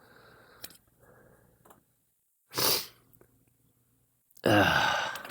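A man with a cold sneezing: a short breathy burst about halfway through, then a loud sneeze near the end.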